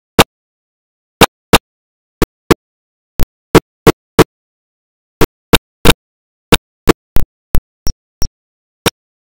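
Short clicks or fragments of sound, about nineteen at uneven intervals of roughly two a second, with dead silence between them: a broken or dropping-out audio track rather than any continuous sound.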